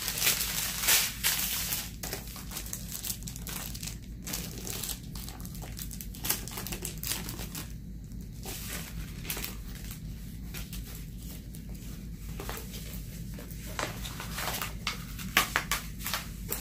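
Clear plastic packaging crinkling and rustling in irregular bursts as bags of diamond-painting drills and a rolled canvas in its plastic sleeve are handled, louder in the first couple of seconds and again near the end.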